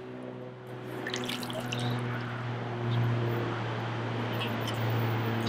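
Pool water splashing and trickling as a test kit's sample cell is dipped into the pool, rinsed and filled for a pH test. A steady low hum runs underneath.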